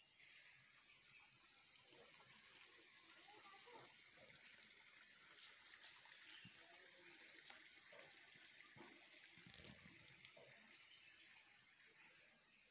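Near silence: a faint, steady hiss of outdoor background noise.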